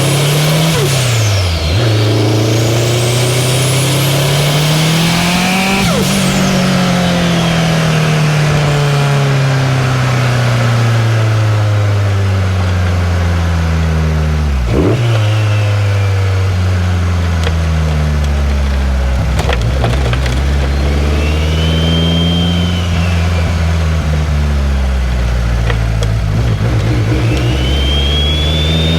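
2003 Subaru WRX's turbocharged flat-four engine pulling through the revs and easing off several times, pitch climbing and then dropping with sharp breaks about 2, 6 and 15 seconds in, where gears change or the throttle lifts. A high whistle rises and falls with the revs above the engine note.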